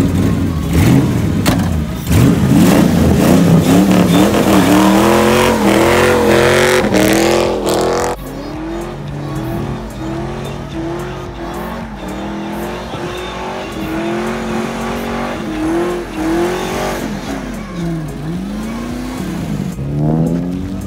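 Fox-body Ford Mustang launching hard, its engine revving up in repeated climbs as it shifts up through the gears and pulls away with tyre smoke. The level drops suddenly about eight seconds in, and the engine keeps climbing through the gears from farther off.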